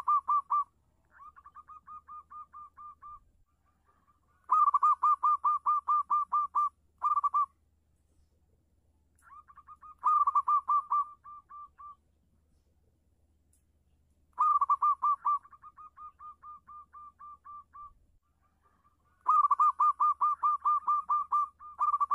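Local zebra dove (perkutut) cooing vigorously in a clear voice: repeated phrases of rapid staccato coo notes, about five a second. Each phrase opens with a loud run and trails off into a softer run, and a new phrase comes about every five seconds.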